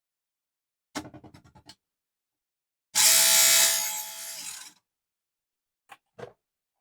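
Mini table saw cutting small aluminum channel: a short rattle of clicks, then about two seconds of loud cutting noise with a steady whine in it, then two short clicks near the end.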